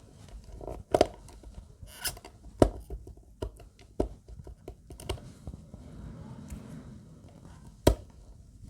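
Irregular sharp clicks and knocks, with short scrapes, of a tool prying at the hard plastic corners of a DataLocker DL4 encrypted SSD enclosure to break away the glued plastic covering its screws. A few louder snaps stand out, about a second in, near the middle and near the end.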